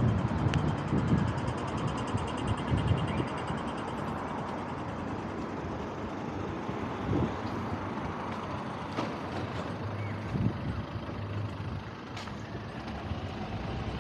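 City street traffic: a motor vehicle passing close by fades away over the first second or two, leaving a steady hum of traffic.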